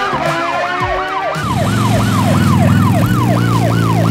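Electronic police siren of a child's ride-on toy police motorcycle, sounding a fast yelp of quick rising-and-falling sweeps, about three a second. A steady low hum joins about a second and a half in.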